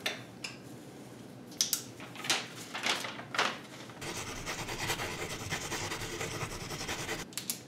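A sheet of paper being picked up from a table and unfolded, with a handful of sharp crinkles over the first few seconds, then a steady hiss.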